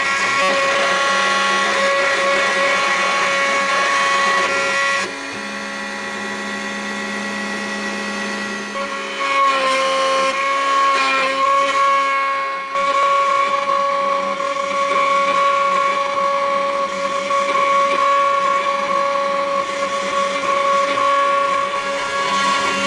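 High-speed spindle of a desktop CNC engraving machine running with a steady whine as its bit cuts lettering into a plate. The sound drops a little about five seconds in, then shifts abruptly twice and settles back to a steady whine.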